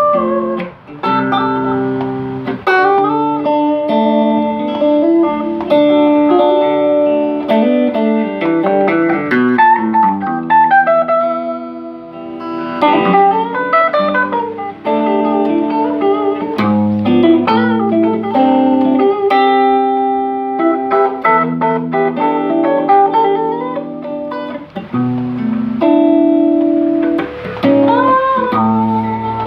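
Two guitars jamming with no singing: an electric guitar picks notes and chords while a second guitar plays notes that glide and bend in pitch.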